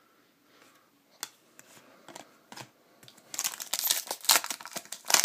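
Plastic trading-card pack wrapper crinkling as it is handled and opened: a few light clicks at first, then dense crinkling from about three seconds in.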